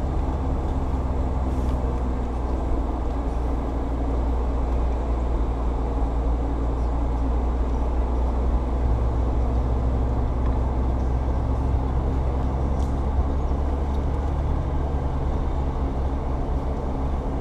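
Jeep Wrangler JL engine running at low speed as the Jeep creeps along a dirt trail: a steady low drone, its pitch shifting slightly about halfway through.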